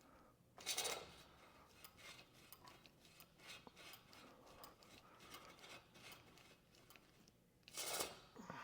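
Faint rubbing and scraping of hands twisting a bar wrapped in a resistance band, with two louder rasping rubs, one about a second in and one near the end, and small ticks between.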